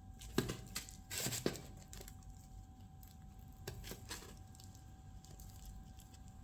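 Light kitchen handling sounds: a few sharp clicks and a short crackling tear about a second in, with two more soft clicks near the middle.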